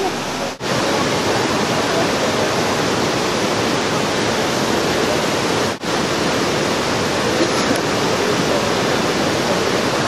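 Waterfall and rocky cascades rushing steadily, with two very brief dropouts, one just after the start and one a little before the middle.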